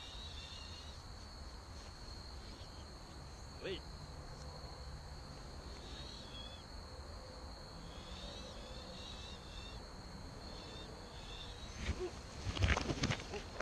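Woodland ambience: a steady high-pitched insect drone with scattered short bird chirps. Near the end, a quick run of knocks and rattles from the mountain bike crossing the logs.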